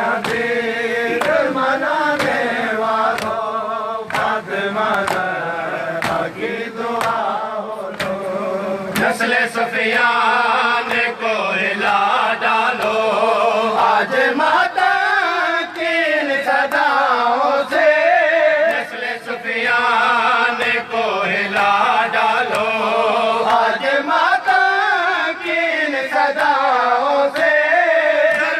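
Men's voices chanting a devotional dua, a sung supplication, in a melodic line that wavers up and down without a break, with scattered sharp clicks.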